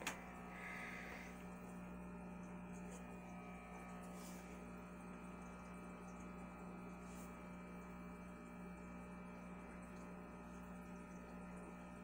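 Faint steady electrical hum of aquarium equipment, the tank's internal filter pump running, with two very faint ticks about four and seven seconds in.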